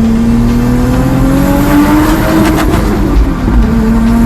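Turbocharged Lexus IS200's 1G-FE straight-six under throttle, its note rising steadily for about two and a half seconds. Then a short rapid crackle as the throttle is lifted and the revs fall away.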